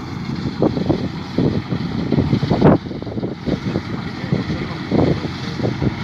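Deutz-Fahr tractor running steadily while pulling a New Holland BR6090 round baler that is gathering straw, with irregular low gusting thumps over the machine noise, the strongest about two and a half seconds in and again near the end.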